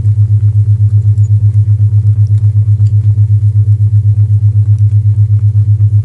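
Isochronic tone: a loud, low hum pulsing on and off evenly, about seven times a second, over faint crackling from a fireplace.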